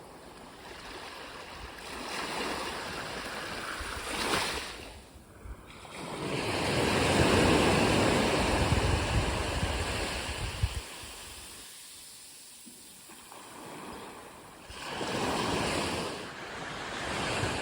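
Surf washing onto a beach, the noise swelling and fading in surges, loudest about halfway through, with wind rumbling on the microphone.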